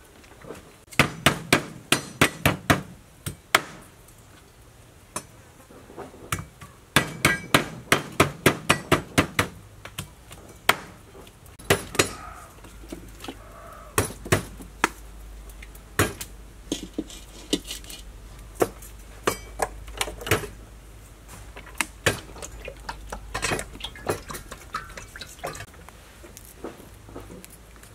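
Knife chopping lemongrass and galangal on a wooden cutting board, in quick runs of sharp knocks with scattered single knocks later.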